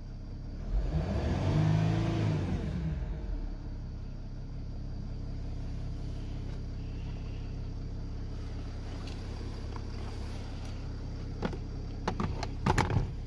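Mercedes OM642 V6 turbodiesel in a Chrysler 300C revved once past 3,000 rpm with a newly replaced turbo actuator, the pitch rising and falling back to a steady idle. This is a test for the boost fault (P0046) that used to cut power at that speed. A few sharp clicks and knocks come near the end.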